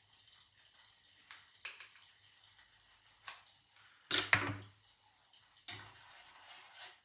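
Spoon and cookware clinking and knocking while cooking at the stove, with one loud clatter about four seconds in and a smaller knock near the six-second mark.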